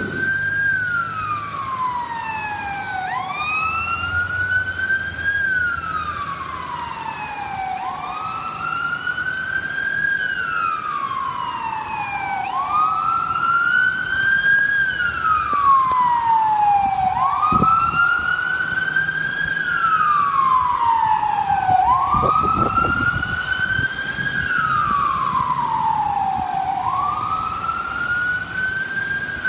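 A fire engine's siren on the wail setting, its pitch rising and falling in long slow sweeps about every four and a half seconds. The truck's engine rumbles faintly underneath, with a couple of low thumps partway through.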